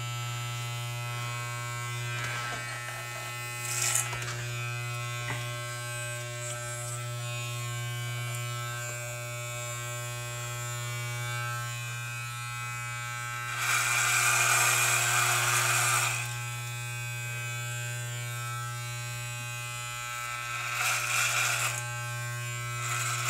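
Corded electric hair clippers buzzing steadily while shearing off a thick beard. There are louder, raspier stretches as the blades bite into the hair, a long one about two-thirds of the way in and a shorter one near the end.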